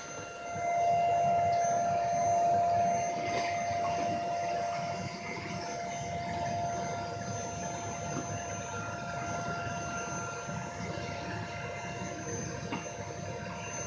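Vacuum cleaner motor running steadily with a constant whine, louder for the first few seconds and then settling a little quieter.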